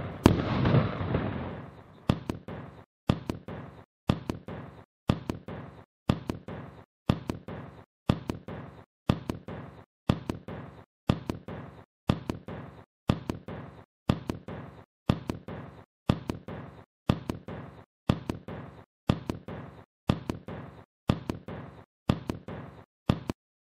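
The last shot of a 30 mm firework cake bursting and crackling, dying away within about two seconds. Then a steady run of sharp knocks, about one a second, each followed by dead silence.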